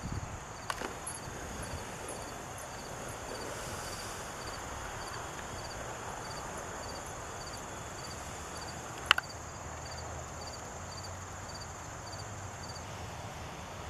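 Outdoor ambience with an insect chirping in a steady rhythm, about two short high chirps a second, stopping near the end. A sharp click about nine seconds in is the loudest sound.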